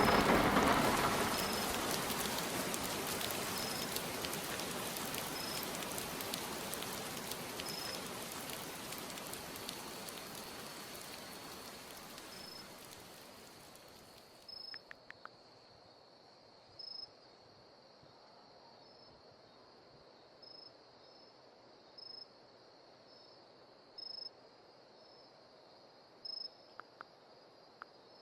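Heavy rain falling, dying away over about fifteen seconds and stopping fairly abruptly, leaving insects: a steady high trill with short chirps every second or two.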